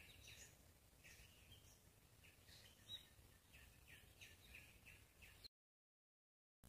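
Near silence: faint, short high chirps of small birds over a quiet low rumble, cutting to dead silence about a second before the end.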